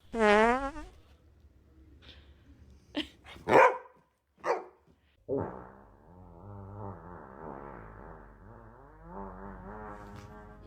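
A dog barking a few times, then a long, buzzy fart sound effect with a wavering pitch starting about halfway through.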